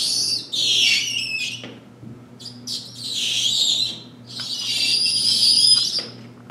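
A window-cleaning squeegee's rubber blade squeaking across wet window glass in about four strokes, each a high, wavering squeal. The installer calls it a good sound: the squeak means the glass is getting clean.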